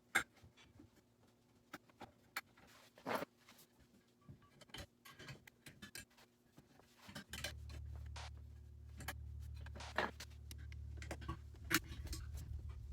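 Scattered light clicks and knocks, as of objects being handled. About seven seconds in, a steady low hum starts and continues under them.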